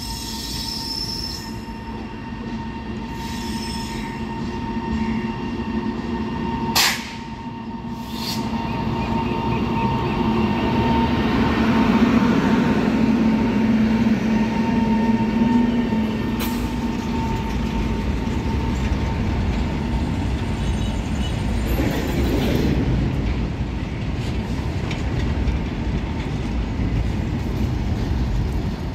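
Freight train rolling past with its wheels squealing in steady tones over a rumble that builds over the first dozen seconds, with a few sharp clicks along the way.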